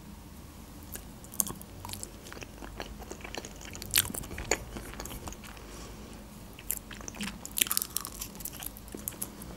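Close-miked eating sounds: the foil wrapper of a processed cheese wedge crinkling as it is peeled open, then mouth clicks and chewing as the soft cheese is bitten. Sharp, scattered clicks, thickest near the end when the bite is taken.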